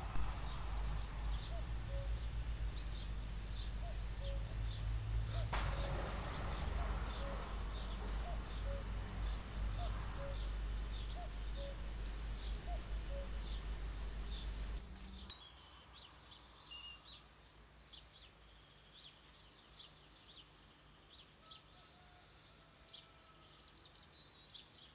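Small woodland birds chirping and calling, with short high notes scattered through and a louder call about 12 s in. A low rumble of wind or microphone noise lies under the first half and drops away about 15 s in, leaving the chirping over a quieter background.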